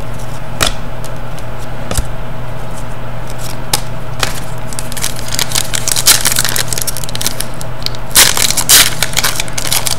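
Trading cards and foil packs being handled, with scattered light clicks and taps over a steady low hum. Then, from about halfway in, a foil trading-card pack wrapper crinkles and tears open.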